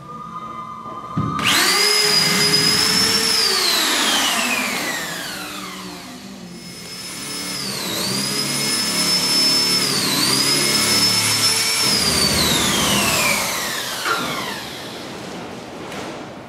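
Corded electric drill boring holes in a wall. It whines up to speed about a second in, holds, then its pitch falls away as it winds down. It runs up again about six seconds in, dips briefly in pitch twice, and winds down again near the end.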